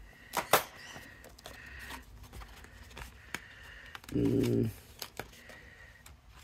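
Die-cut gold cardstock being handled and peeled off a clear plastic cutting plate: two sharp taps about half a second in, then light scattered clicks and paper handling sounds. A short hummed voice sound about four seconds in.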